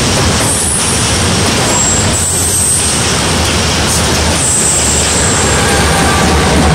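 A pair of diesel locomotives hauling a passenger train as it pulls out, passing at close range: a loud, steady engine drone with a deep hum over the rumble of the train. It grows a little louder near the end as the lead locomotive comes alongside.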